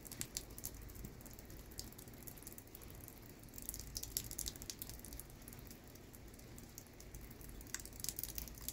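Light rain in a thunderstorm: scattered raindrops ticking close by, irregular and faint, over a low rumble.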